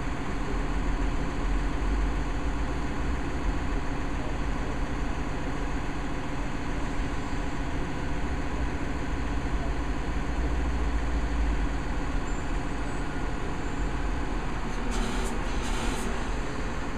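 Backhoe's engine running steadily at idle, with two short hissing bursts near the end.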